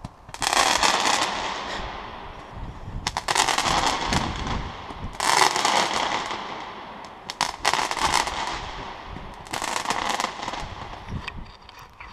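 Fireworks going off in about five volleys of rapid crackling bangs, a couple of seconds apart. Each volley rings on in a long echo inside a concrete cooling tower.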